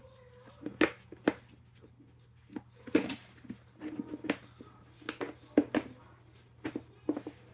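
A hard plastic toy egg being handled, giving irregular sharp clicks and knocks of plastic on plastic.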